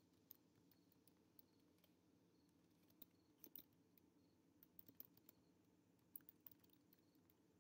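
Faint typing on a computer keyboard: scattered key clicks in short runs, with pauses between them.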